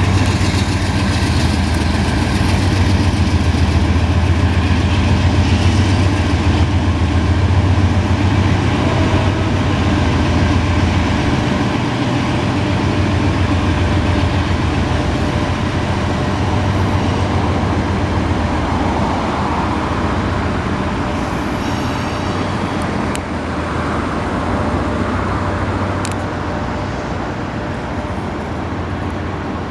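Union Pacific freight train rolling past: a steady low rumble of the train, easing slightly toward the end.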